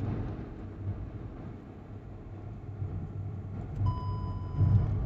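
Wind buffeting the microphone on a moving motorcycle: a low, gusting rumble that swells and fades. About four seconds in, a steady tone sounds for about a second.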